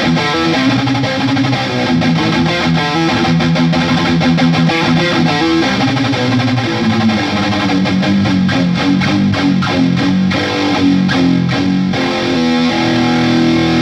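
Electric guitar played through a HeadRush pedalboard, its tone shaped by a third-party impulse-response cabinet file loaded in place of a stock cab. It plays continuously with changing notes and chords.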